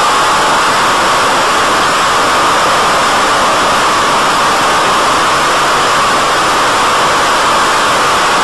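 BTE Delta Vortex flying wing's motor and propeller running steadily in flight: a faint steady whine under a loud, even rushing hiss of wind and noise.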